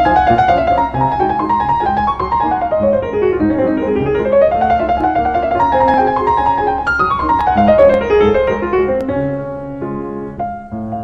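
Background piano music playing fast runs of notes that sweep down and back up, getting a little quieter near the end.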